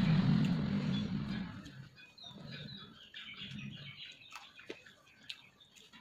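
A motor vehicle's engine passes and fades out over the first second and a half. Then birds chirp faintly, along with small clicks from eating.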